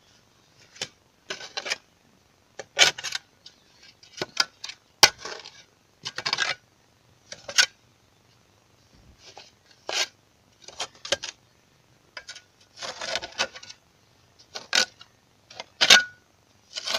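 Small shovel scraping through soil and clinking against a large rusty iron scrap piece, in a dozen or so short irregular scrapes.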